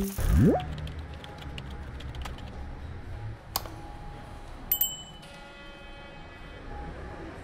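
Railway station hall ambience: a steady low hum with a single click, then two short high electronic beeps just under five seconds in, followed by a bell-like chime that rings on and slowly fades.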